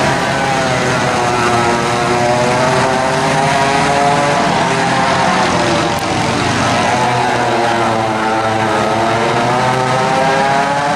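Several vintage race kart engines running together on track, from a combined field of modified McCulloch MC-49 and flathead classes. Their pitch rises and falls as the karts accelerate and back off through the corners.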